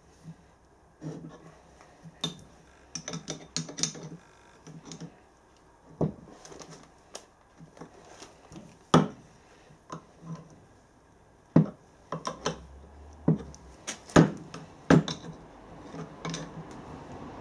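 Spanner clicking and knocking on the steel Whitworth nuts of a steam engine's connecting rod big end as they are done up: irregular metallic clicks and clinks with a few sharper knocks.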